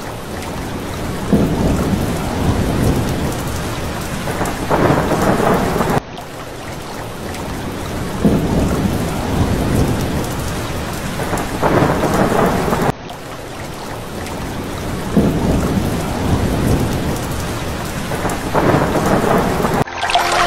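Steady rain with rolls of thunder. The same stretch of storm sound repeats about every seven seconds, cutting off abruptly each time, with two rumbles in each pass.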